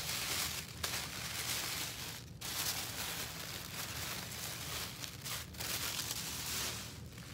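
Tissue paper being handled and unfolded, crinkling and rustling almost continuously with a few short pauses.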